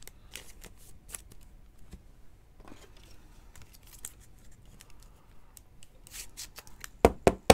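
Trading cards handled and flipped through by hand: soft rubbing and sliding of card stock with scattered small clicks, and two sharp snaps near the end.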